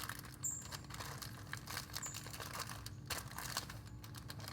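Plastic zip-top bag crinkling and crackling irregularly as clay is pushed into it. A pet bird chirps briefly in a high pitch three times.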